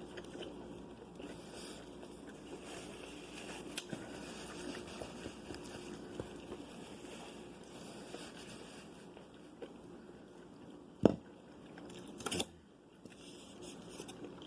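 Soft, quiet chewing and mouth sounds of someone eating. A single sharp knock about eleven seconds in, the loudest sound, and a brief crunch or rustle about a second later.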